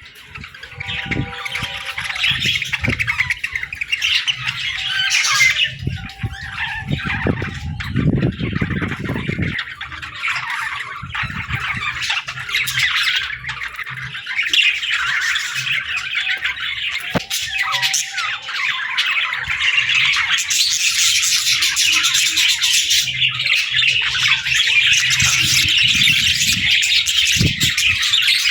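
A flock of budgerigars chattering, chirping and squawking continuously, the calls growing denser in the second half. About eight seconds in, a low rustling rumble runs under the calls for a second or so.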